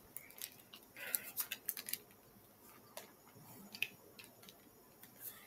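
Plastic shaker cup being shaken by hand to mix protein powder into water: quiet, irregular clicks and taps of the lid and the mixing piece inside, bunched about a second in and again near the four-second mark.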